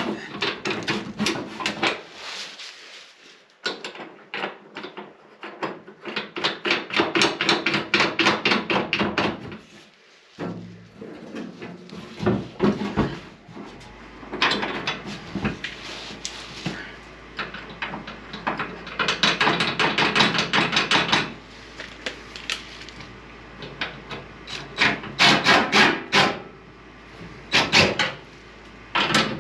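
Runs of rapid metallic clattering and knocking as a new steel fuel tank is shoved and worked up into place under a van, each run lasting a few seconds with quieter gaps between.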